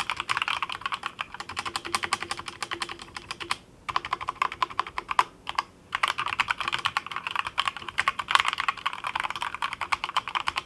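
Fast typing on a GMMK full-size mechanical keyboard with Akko Jelly Black linear switches, not yet lubed: quick runs of keystrokes with two brief pauses around the middle.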